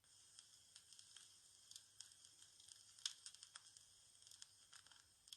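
Faint, quick scratching and ticking of felt-tip colouring pens on paper.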